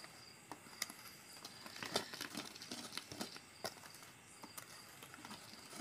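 Fork stirring cake batter in a stainless steel bowl: faint, irregular scrapes and light clicks of the fork against the bowl.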